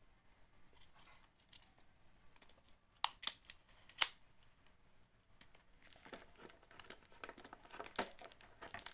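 Tool-kit pieces and case being handled: a few sharp clicks about three and four seconds in, then a stretch of rapid small clicks and rustling near the end.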